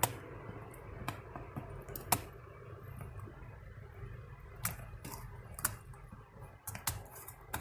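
Irregular plastic clicks and snaps from a laptop keyboard being pried out of its frame, about seven over the stretch, the sharpest about two seconds in, over a low steady hum.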